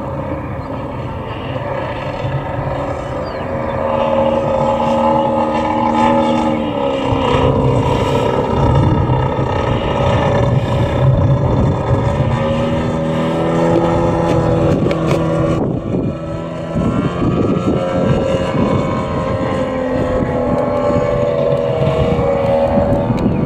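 Giant-scale (50%) radio-controlled Cub model airplane flying overhead, its engine and propeller droning steadily. The drone grows louder about four seconds in, and its pitch rises and falls several times as the plane passes and turns.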